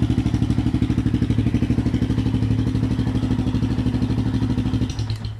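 A Yamaha Sniper 150's single-cylinder four-stroke engine idles through an HGM open performance pipe with its silencer insert fitted. The exhaust beats steadily and evenly, about a dozen pulses a second, and cuts out near the end.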